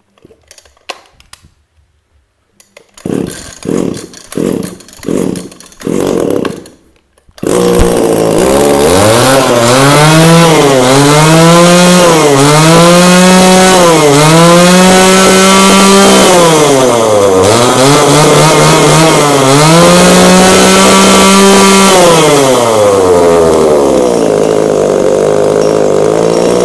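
Two-stroke chainsaw pull-started: about five pulls of the starter cord, catching about seven seconds in. It is then revved up and down repeatedly, about six times, before settling to a lower steady speed near the end.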